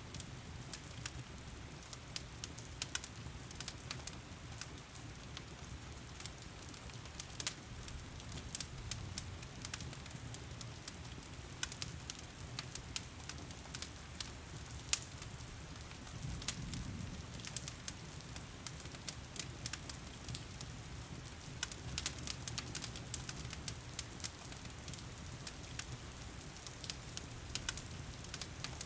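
Wood fire crackling, with frequent sharp snaps and pops over a low steady rumble, mixed with the steady hiss of heavy rain.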